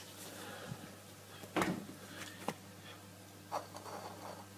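A few light clicks and knocks of handling over a steady low hum.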